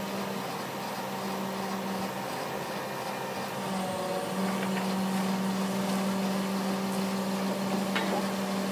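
Crane's engine and hydraulics running with a steady hum that holds one pitch.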